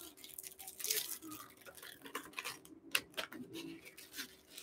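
Light rustling and irregular small clicks as white wrapping is pulled off a glass cup and the cup is handled.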